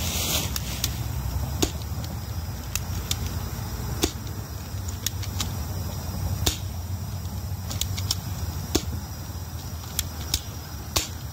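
Sig Sauer MPX airsoft gun with a rolled cardboard tube taped over the muzzle, fired as single shots: about fifteen sharp cracks at irregular intervals, emptying the magazine.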